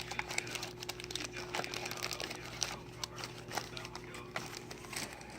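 Packaging being handled: crinkling and rustling with many small, scattered clicks, over a steady low hum.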